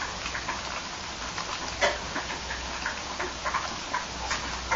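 English bulldog puppies feeding from a steel pan and scrambling on newspaper: a run of irregular small clicks, smacks and patter, with one sharper click a little under two seconds in.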